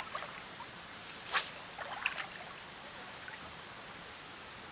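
Steady outdoor hiss with a few short, sharp sounds, the loudest about a second and a half in.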